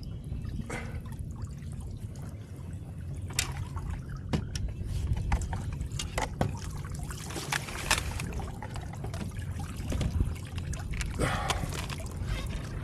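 Water splashing and trickling close by on a kayak, with scattered sharp clicks and knocks over a steady low rumble.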